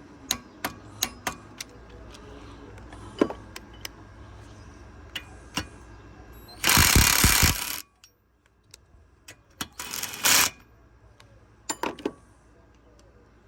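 Hyper Tough 12 V brushed cordless impact driver hammering in two bursts, one of about a second past the middle and a shorter one soon after, driving a fastener against rising resistance. Sharp clicks and knocks of handling the tool and the fitting come before, between and after the bursts.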